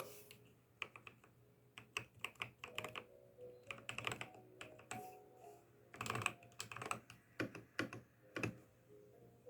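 Typing on an Epomaker TH80 Pro mechanical keyboard fitted with factory-lubed Gateron Pro Brown tactile switches: irregular key clicks, some single and some in quick runs of several presses.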